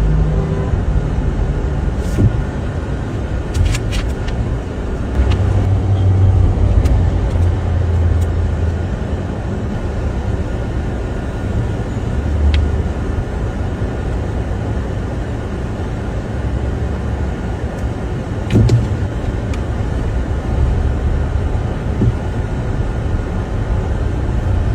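Car engine and traffic noise: a steady low rumble, with a few faint clicks here and there.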